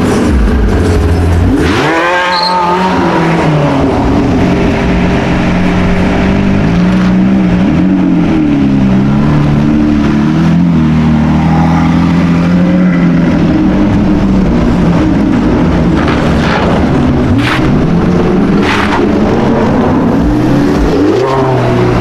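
A supercar's engine revs sharply up about two seconds in, then runs on at changing speed as the car drives. It rises in pitch again near the end.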